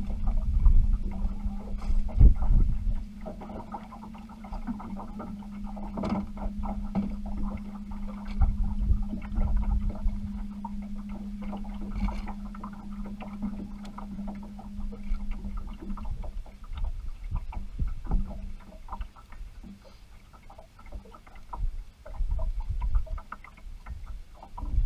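A small electric motor aboard a bass boat hums steadily at one pitch, fading out about sixteen seconds in, over low wind rumble on the microphone and scattered light clicks.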